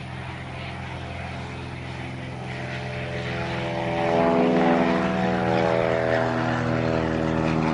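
Propeller airplane's piston engine running with a steady drone that grows louder about four seconds in.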